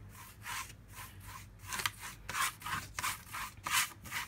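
A large paintbrush scrubbing watery acrylic paint across a canvas in quick back-and-forth strokes, about three a second.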